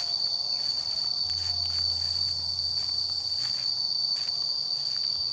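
Insects droning in a steady, unbroken high-pitched chorus.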